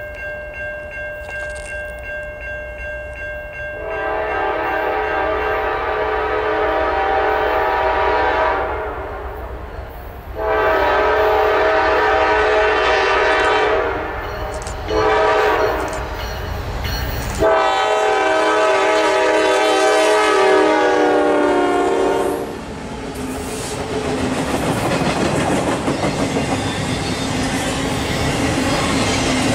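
Diesel freight locomotive's air horn blowing the grade-crossing signal of long, long, short, long as the train approaches. The horn stops as the lead locomotive goes by, and double-stack intermodal cars roll past with wheels clattering over the rail joints.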